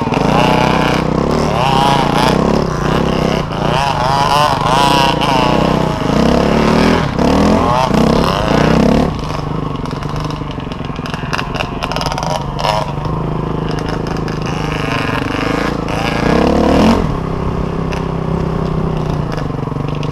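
Dirt bike engine heard from on board, revving up and down with the throttle, its pitch wavering, through the first half. After about nine seconds it runs lower and steadier, with another brief rev near the end.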